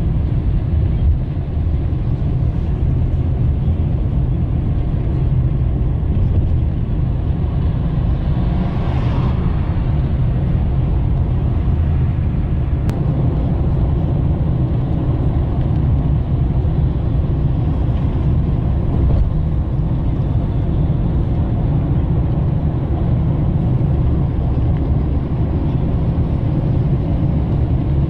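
Steady engine and tyre rumble inside a moving car's cabin. A brief swell of hiss rises and fades about nine seconds in.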